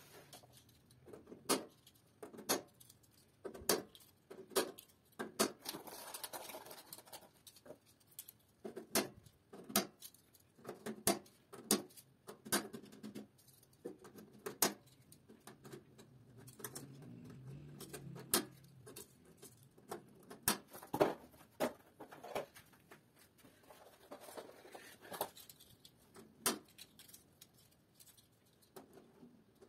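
Plastic DIN-rail terminal blocks being snapped onto a metal rail and pushed together: a string of sharp clicks and knocks at irregular intervals, about one or two a second, with two stretches of softer scraping.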